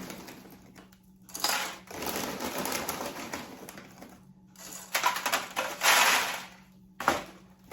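Dry snack-mix ingredients (cereal, pretzels, nuts) rattling as they are poured and scooped into a measuring cup. The rattling comes in several bursts, the loudest just before the end, with a sharp click near the end.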